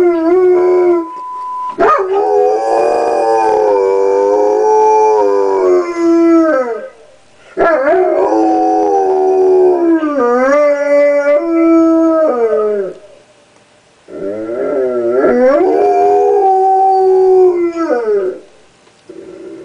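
Black Labrador howling: three long, wavering howls with short breaks between them. About a second in, the answering machine gives a short steady beep.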